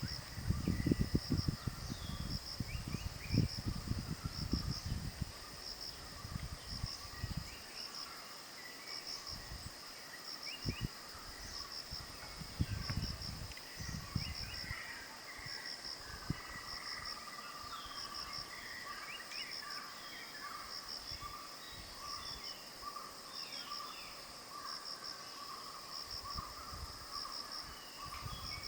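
Tropical forest ambience: insects keep up a steady high chirring that pulses about once a second, while birds make short calls that glide in pitch. There is low rumbling with a few knocks in the first seven seconds, then a lone knock near eleven seconds.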